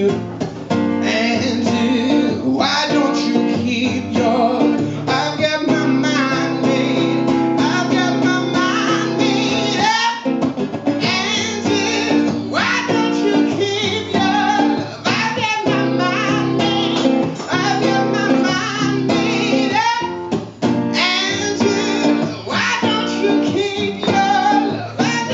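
A man singing over his own strummed acoustic guitar, a solo singer-songwriter performance with short breaks between sung phrases.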